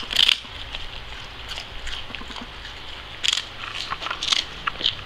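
Small dogs crunching and chewing crisp ice cream cones: irregular crunches, the loudest about a quarter second in and others around three and four seconds in.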